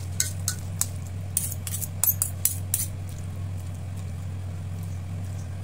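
Metal serving spoon and fork clinking and scraping against a stainless steel mixing bowl while tossing dressed cabbage salad. There are about a dozen light clinks over the first three seconds, then only a steady low hum.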